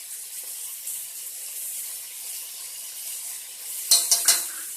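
Chicken frying in a pan with spices, a steady sizzle. About four seconds in come three sharp knocks in quick succession, louder than the sizzle.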